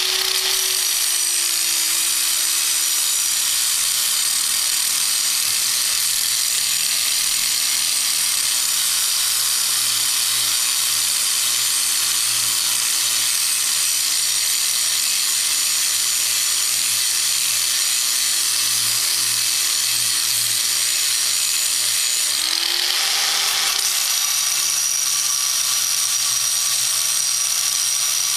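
A 4.5-inch angle grinder cutting through a hardened steel padlock shackle, with steady grinding hiss and the motor running under load. About 23 seconds in, the motor pitch briefly rises as the load eases, then settles back into the cut.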